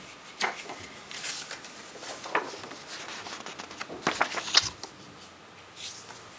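A CD booklet being handled and leafed through: paper rustling with a few sharp clicks and taps, the loudest cluster about four seconds in.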